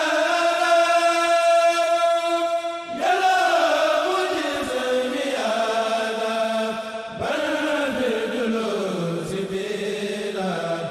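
Arabic devotional chant of a religious poem, sung by a voice in long drawn-out notes of a few seconds each, the last phrase sliding downward in pitch.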